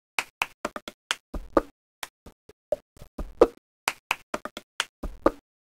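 Dry percussive clicks and knocks in a repeating rhythmic pattern, like a sparse percussion beat. A low thud comes in each cycle, about every two seconds.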